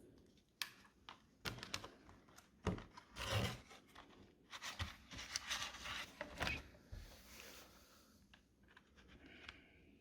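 Plastic retail packaging crinkling and rustling in short bursts, with scattered sharp clicks and taps, as RAM modules are taken out of their packaging.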